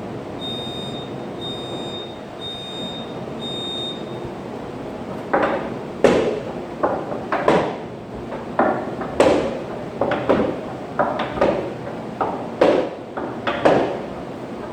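A workout interval timer beeps four times, high-pitched and about a second apart, counting down the start of the minute. From about five seconds in, a string of sharp knocks and thuds follows at irregular intervals, each with a short ring-out.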